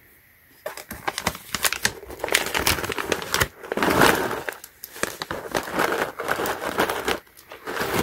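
A plastic switch pouch crinkling as it is handled and tipped, with small plastic mechanical keyboard switches clicking and clattering against each other as they pour into a hand. It starts under a second in and dies down near the end.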